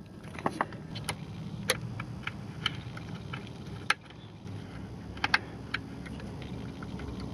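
Small irregular clicks and ticks of wires and screws being worked into a screw terminal block on a pool pump's control board, a few sharper ones standing out, over a low steady background hum.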